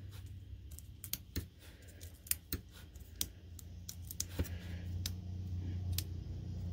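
Scattered light clicks and ticks of metal tweezers and small cardstock pieces being handled while foam dimensionals are peeled off their backing sheet, over a low hum that grows louder in the second half.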